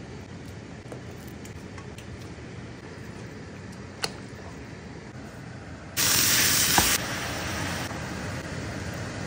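Steady hiss of a pot of stock and rice boiling as it is stirred, with a single clink of the utensil on the pot about four seconds in. About six seconds in a loud sizzle starts, ground beef frying in a hot pan; it is loudest for the first second, then settles into a steady sizzle.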